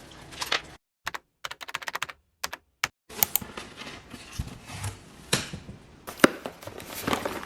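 A series of short, sharp clicks and taps: a quick run of clicks separated by dead silence about a second in, then more irregular, louder taps.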